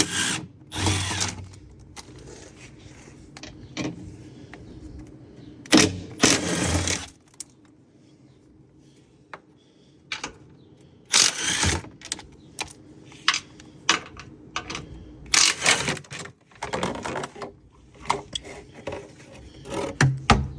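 Electric wrench with a 12 mm socket spinning out skid plate bolts in short runs of about a second each, four main runs with smaller clicks and rattles of the loosened parts between them.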